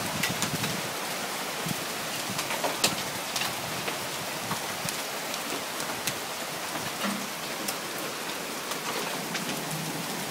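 Hailstorm with heavy rain: a steady hiss of downpour, dotted throughout with sharp ticks and cracks of hailstones striking the ground and nearby surfaces.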